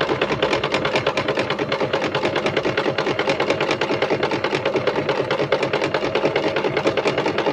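Singer Start portable sewing machine running steadily, sewing a small zigzag stitch along a folded fabric edge, with its needle strokes in a fast, even rhythm.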